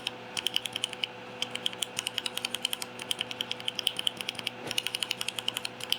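Rapid repeated keystrokes on a Keychron Q5 mechanical keyboard fitted with an Akko Jelly Black linear switch, a key pressed and released several times a second with a short pause about a second in.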